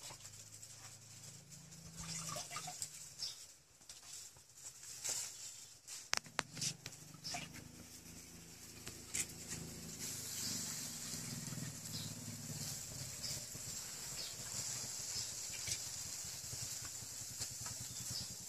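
Pot of chicken curry bubbling over an open wood fire, with scattered crackles and pops from the fire. A steady hiss comes in about halfway through as the pot steams.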